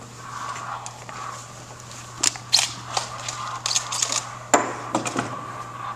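A run of short, irregular clicks, rattles and knocks of gear being handled, starting about two seconds in, with the sharpest knock about four and a half seconds in, over a faint steady hum.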